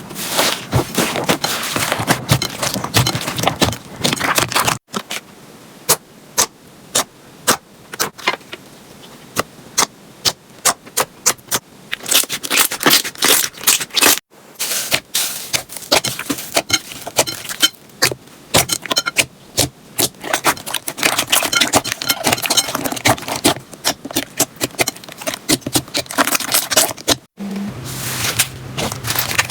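Slime being pressed and squeezed by hand, giving rapid crackling and sharp popping clicks, broken off abruptly a few times.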